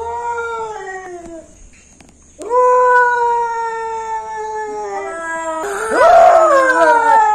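Domestic cats yowling in long drawn-out calls: one falling call, a pause, a long held yowl, then a louder, rougher yowl near the end. This is territorial caterwauling at a rival cat.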